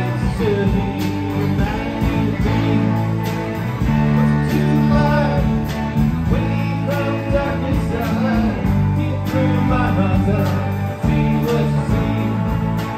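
Live band playing an amplified song: two electric guitars, electric bass and a drum kit keeping a steady beat, with a guitar line sliding and bending over the top.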